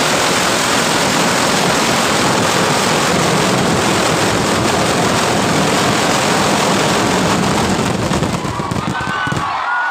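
Massed firecracker barrage of a Kerala temple-festival vedikkettu: countless explosions merge into one loud, continuous crackling din. It cuts off about nine and a half seconds in, and crowd shouts and whistles rise as it ends.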